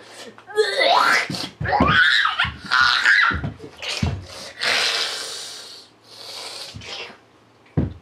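A boy's wordless yelps and strained cries, then loud breathy gasps and exhales. It is his reaction to swallowing a foul mix of undiluted syrup, lemon juice, mustard, salt and a bitter liquid.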